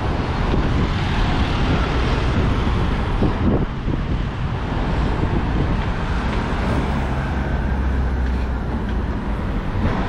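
Road traffic driving past on the bridge carriageway, cars and vans going by, with wind noise on the microphone. One vehicle's engine hum stands out for a couple of seconds near the end.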